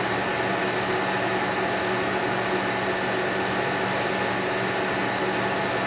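Steady machine noise: a constant hiss over a low hum that does not change.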